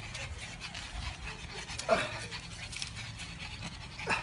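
Several pugs panting hard while excitedly playing, with a short, louder cry about two seconds in and another near the end.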